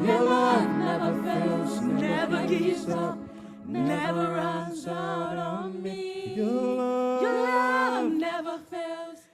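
Worship team voices singing a slow worship song together, holding long drawn-out notes.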